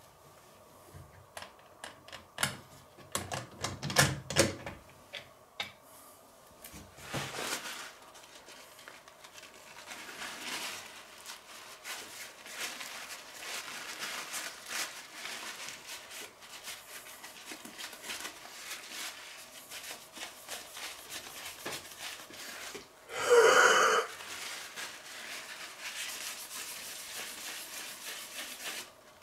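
Hands working on a PC case: a string of sharp clicks and knocks in the first few seconds, then a long stretch of fine rubbing and scratching as a cloth wipes the water-cooling radiator and its fans, with one loud short rustle about 23 seconds in.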